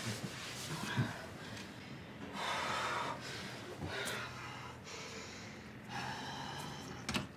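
A person breathing heavily in separate, irregular breaths a second or two apart.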